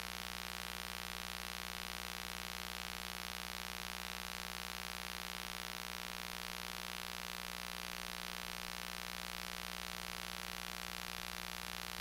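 Steady electronic hiss with a constant hum of several fixed tones and no voice: the noise floor of the recording chain with the speech signal missing.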